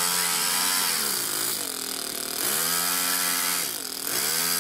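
Toyan FS-S100 four-stroke single-cylinder overhead-cam engine in an RC car being revved in bursts. Its pitch climbs, holds for about a second and drops back twice, and it rises again near the end.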